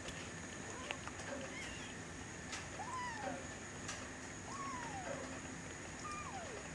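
Three-week-old Bengal kitten mewing: three short, thin mews about a second and a half apart, each rising then falling in pitch.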